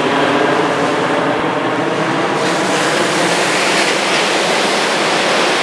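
Helicopter flying over breaking surf: a steady engine and rotor hum that fades after about two seconds, when the hiss of the waves grows louder.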